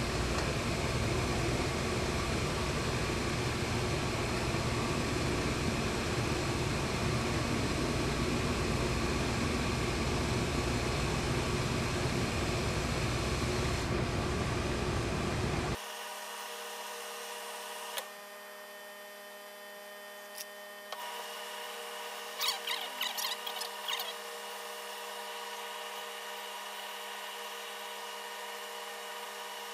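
Steady machine whirring, like a fan or blower, that cuts off suddenly about halfway through. Afterwards there is only a faint hum, a single click, and a short run of small clicks and rustles from handling fabric.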